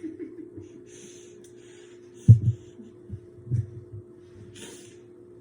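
A steady low hum, with a few soft low thumps (the loudest about two seconds in) and brief rustles.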